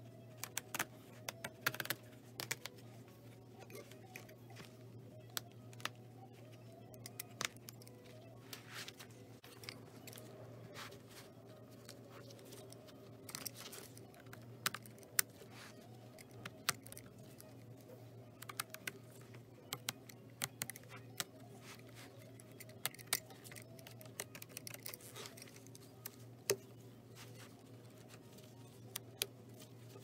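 Utility knife blade cutting through the stitching of an old zipper on a leather bag: irregular small clicks and snaps as the threads part, over a steady low hum.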